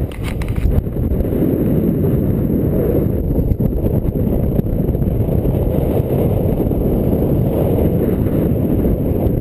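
Wind rushing over the microphone of a camera carried in paragliding flight: a steady low rumble with no engine tone.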